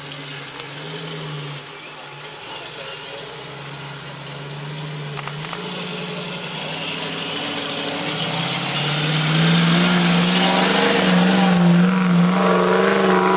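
A 4x4's engine running under load, its revs edging up and growing louder through the second half. A few sharp clicks come about five seconds in.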